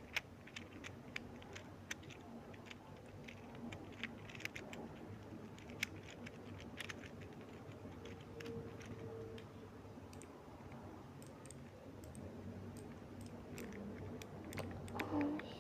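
Irregular soft clicks and taps over a low steady hum, with a short pitched sound near the end.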